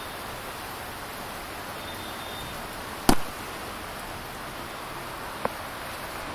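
Steady rain falling, an even hiss, with one sharp knock about three seconds in and a fainter tick near the end.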